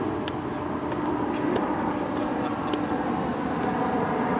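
Steady, even engine-like roar with a faint hum running through it.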